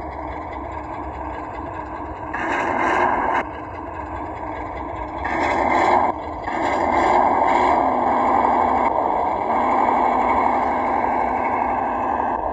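Radio-controlled 1:12-scale ZIL-131 truck crawling over rough ground. Its motor and drivetrain run steadily and surge louder in spurts as the throttle is opened, about two and a half seconds in, again about five seconds in, and for most of the second half.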